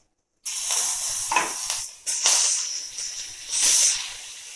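Sliced raw onions hitting hot mustard oil in a frying pan: a sudden loud sizzle starts about half a second in, surges twice more as more onion slides in, then settles to a steadier, quieter sizzle near the end.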